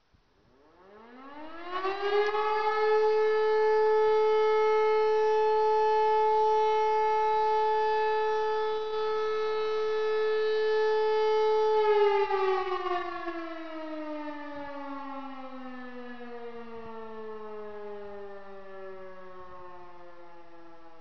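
E57 electromechanical motor siren starting up about half a second in, its pitch climbing steeply for about two seconds to a loud steady tone. It holds for about ten seconds, then the motor is switched off and the siren winds down with a slowly falling pitch. This is the first 12-second tone of the German 'Feueralarm' fire alarm signal.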